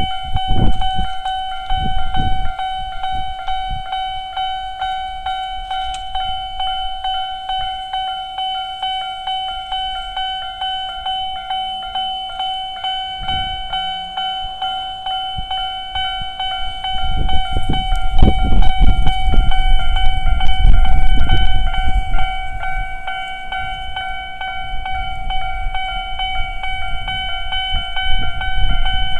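Japanese electronic level-crossing alarms ringing steadily for the Tobu Kiryu Line and Jōmō Electric Railway tracks. Under them is the rumble and wheel clatter of passing trains: one briefly at the start, and a louder passing from about 17 to 23 seconds in.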